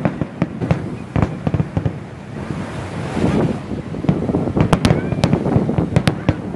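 Aerial fireworks display: shells bursting in quick succession, with a spell of crackling hiss about halfway through and a run of sharp bangs near the end.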